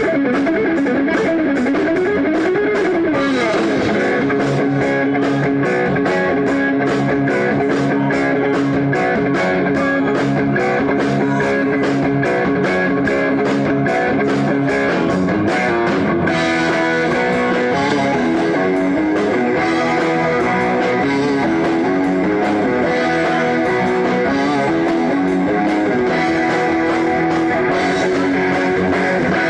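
Rock band playing live, led by electric guitar over bass and a steady beat; the part changes about halfway through.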